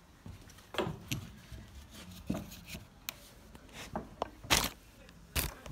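Handling noises with rustling and a scattered series of sharp knocks and clunks, the two loudest near the end.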